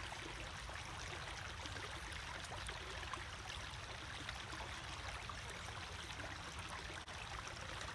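Small creek's water running steadily, an even rush.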